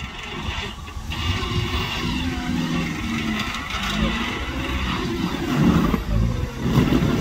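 Off-road 4x4 engine revving under load, its pitch rising and falling and getting louder toward the end.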